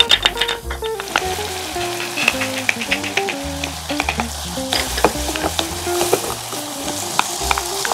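Diced onion, garlic and frozen edamame sizzling in melted butter in a saucepan, with sharp clicks of a wooden spoon and pieces dropping into the pan. Background music with a melody and bass plays over it.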